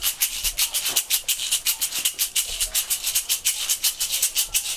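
Jatobá-pod rattle (chocalho de jatobá), a hollow jatobá fruit pod with small stones glued inside, shaken in a fast, even rhythm, the stones rattling crisply against the shell.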